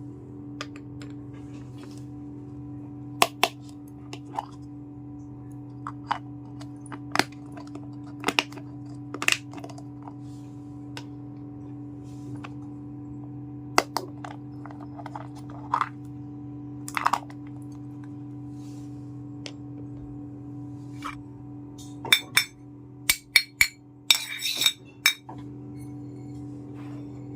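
Small clinks and taps of miniature toy kitchenware pieces being handled and set down, scattered at first, then a quick run of clicks near the end, over a steady low hum.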